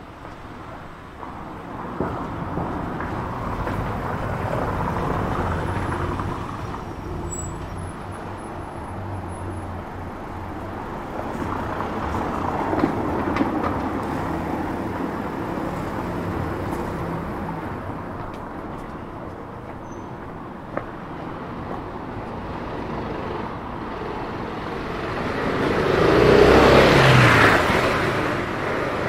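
Street traffic: cars passing one after another over a steady background hum, the loudest one going by near the end.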